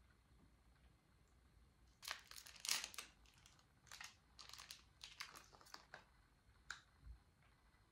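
Plastic snack wrapper crinkling and tearing open, a run of short crackles over about four seconds with one more crackle near the end.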